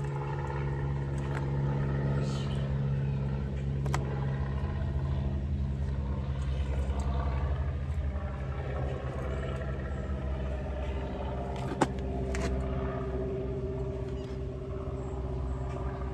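A steady low machine hum, with a few light clicks and one sharp click about twelve seconds in.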